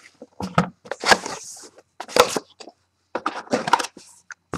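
Cardboard trading-card hobby box being opened by hand and its contents lifted out: a run of irregular crackles and sharp clicks from the packaging being handled.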